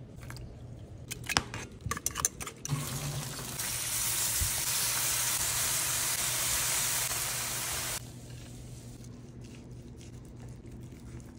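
A run of sharp clicks and taps, then a steady sizzle from a glazed whole chicken on hot grill grates, lasting about five seconds and cutting off suddenly.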